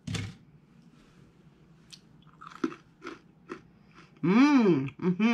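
A crisp snap as a piece is broken off a sesame bar, then faint crunchy chewing of it. About four seconds in comes a long hummed 'mmm' that rises and falls in pitch, and a shorter one near the end.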